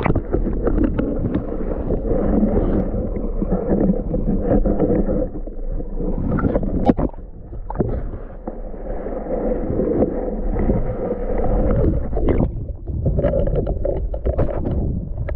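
Water sloshing and gurgling around a camera held under the lake's surface, heard muffled, with scattered knocks and a sharp click about seven seconds in.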